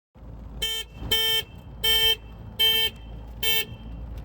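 Vehicle horn honked five times in short, single-pitched blasts. Each blast lasts about a quarter of a second, and they come at roughly three-quarter-second intervals.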